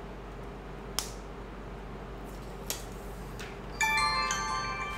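HTC One S startup chime: a short run of bright, ringing notes from the phone's speaker near the end, played as the phone boots. Before it, a sharp click about a second in.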